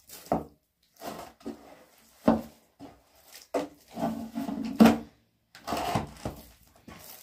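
Hands kneading a large mass of bread dough in a metal basin: irregular squelching and slapping as the dough is folded and pressed, with a few heavier thumps, the loudest about two and five seconds in.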